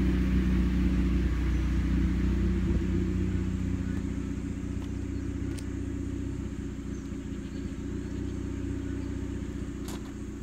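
A steady low mechanical rumble with a hum, like a motor or engine running, slowly growing fainter. A few short sharp clicks come near the end.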